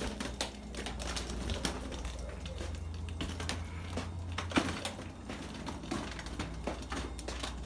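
Steel wool brush scrubbing against metal: a quick, irregular run of scratchy strokes and small clicks.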